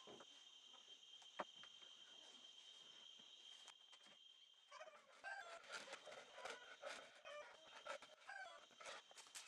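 Faint outdoor background: a steady high-pitched buzz for the first few seconds, a single click a little over a second in, then scattered faint bird calls.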